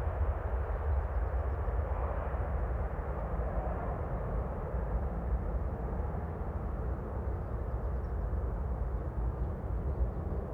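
Gulfstream G650ER business jet's two Rolls-Royce BR725 turbofans at takeoff power as it climbs out, a steady deep rumble.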